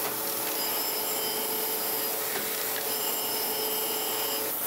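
Surface grinder wheel grinding across the steel top of a magnetic chuck: a steady hiss of the cut over the running wheel's hum. Its higher tones drop out and come back a few times as the wheel crosses the plate.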